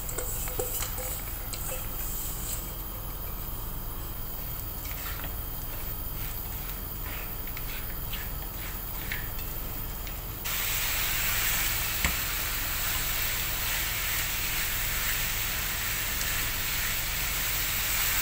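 Sweet coconut and coconut-milk filling sizzling in a non-stick pan as a wooden spatula stirs in ghee-roasted nuts, gram and raisins, with a few scraping strokes in the first half. About ten seconds in the sizzle turns abruptly louder and steadier.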